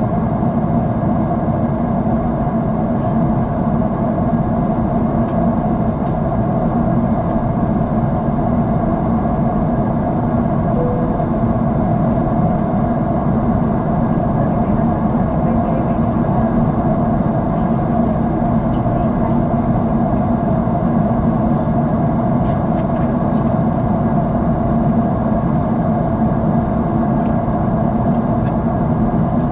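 Jet airliner cabin noise by a window seat: a steady, low-pitched rush and hum from the engines and airflow, unchanging throughout.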